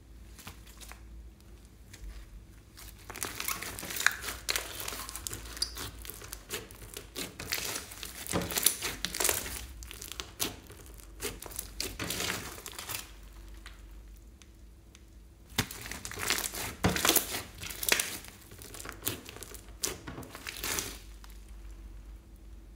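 Clear slime packed with glitter and beads being stretched, squeezed and kneaded by hand, making dense runs of small crackles and squishes. There are two long spells of this, a quieter pause between them about 13 to 15 seconds in, and another quieter stretch near the end.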